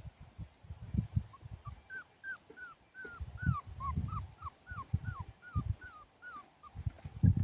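Puppy whimpering in a run of short high squeals, about three a second, over loud low thumps and knocks.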